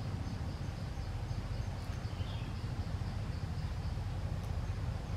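Steady outdoor background noise: a low rumble with faint high insect buzzing, and a short bird chirp about two seconds in.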